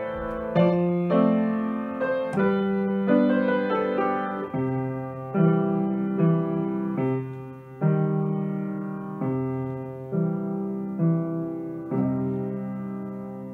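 Grand piano played solo: a slow passage of chords, a new one struck roughly every second and left to ring. The last chord, struck near the end, fades away.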